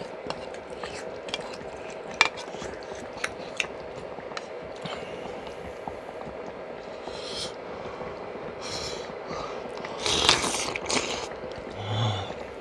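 Dumpling soup bubbling at a steady rolling boil in a pot on a burner, with chewing and scattered sharp clicks. A louder rush of noise comes about ten seconds in, and a short low hum near the end.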